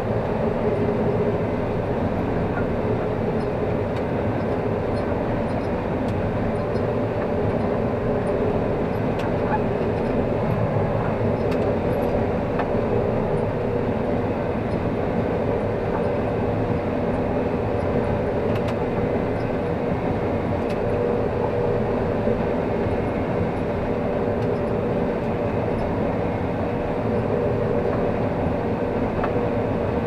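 Combine harvester running steadily while harvesting corn, heard from inside the cab: a constant drone of engine and threshing machinery with a steady hum.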